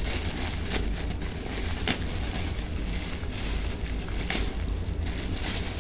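Delivery packaging being torn open and handled, with crackling and rustling and a few sharp clicks over a steady low rumble.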